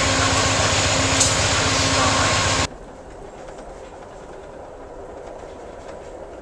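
Amtrak GE Genesis diesel locomotive running steadily while standing, a loud drone with a constant hum. A little under three seconds in it cuts abruptly to the much quieter, even rumble inside a Superliner sleeping car.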